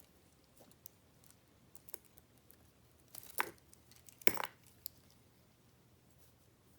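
Packaging being handled: scattered light clicks and taps, with two short crinkling rustles about three and four seconds in.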